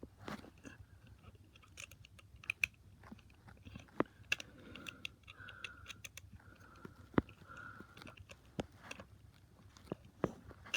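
Small clicks and taps of a screwdriver and hard plastic toy-train parts being handled and worked, with irregular sharp ticks throughout.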